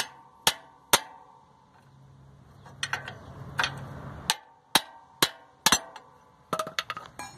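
Handling noise from a phone camera being moved and set in place: scattered sharp knocks and clicks, with a quick run of them near the end.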